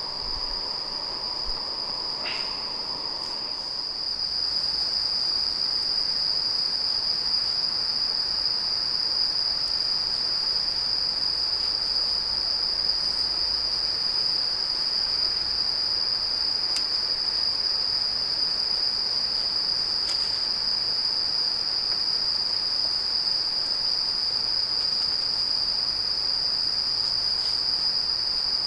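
Crickets chirring in an unbroken, steady high-pitched trill, with a faint hiss underneath that grows a little louder about four seconds in.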